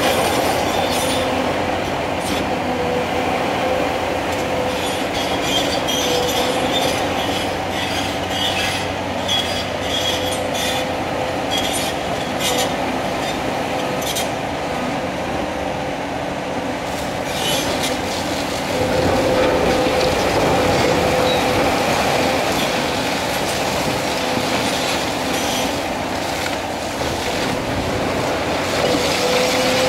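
Cat 336 Next Generation hydraulic excavator running under load, with a steady whine, while its demolition crusher bites into a concrete building. Repeated cracking, scraping and clattering of breaking concrete and falling debris come through it, densest in the first half.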